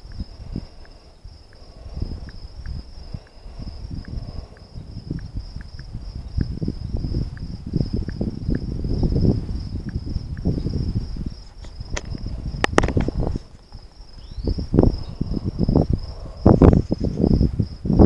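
Crickets chirping in a steady rapid pulse, over loud irregular low rumbling on the microphone. A few sharp clicks partway through.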